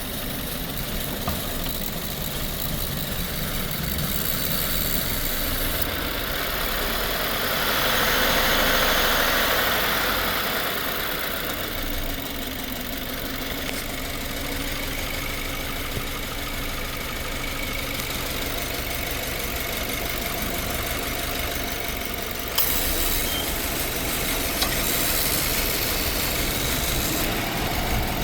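Subaru Forester's 2.0-litre turbocharged flat-four engine idling while misfiring on cylinder 4. A rushing swell of noise rises and fades about eight to ten seconds in, and the sound steps up suddenly about twenty-two seconds in.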